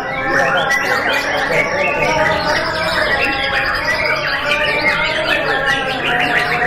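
Many caged songbirds singing at once in a contest round: a dense, continuous chorus of overlapping whistles and trills.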